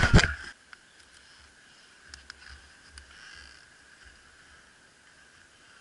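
A brief burst of crashing and crackling of leaves and branches as people scuffle in the undergrowth, cutting off about half a second in. After that it is quiet, with a faint steady high-pitched drone and a few light clicks.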